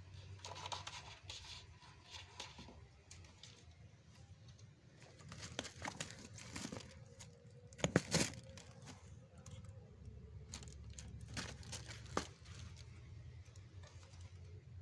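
Cats scrabbling and clawing at cloth and bedding while play-fighting: scattered rustling and scratching, loudest in a brief flurry about eight seconds in.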